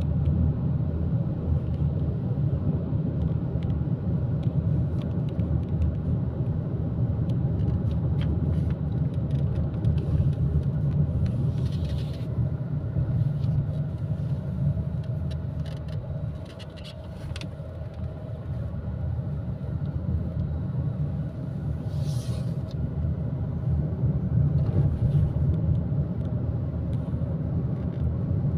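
Road and engine noise heard inside a moving car's cabin: a steady low rumble that eases briefly about halfway through, then comes back up. A couple of short, faint hissy sounds are heard partway through.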